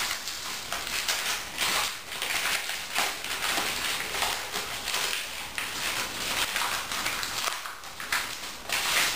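Crinkly wrapping rustling and crackling as a package is unwrapped by hand.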